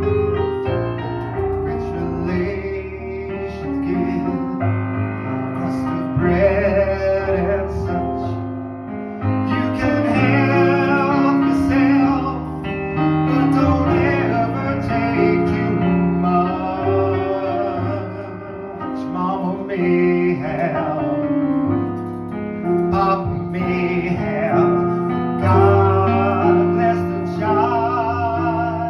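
A man singing a slow song with vibrato, held notes coming and going every few seconds over a piano-led accompaniment.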